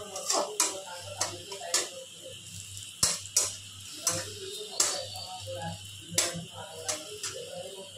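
Metal spatula scraping and clinking against a metal kadai while stirring a small amount of frying food, giving sharp irregular clicks about once or twice a second.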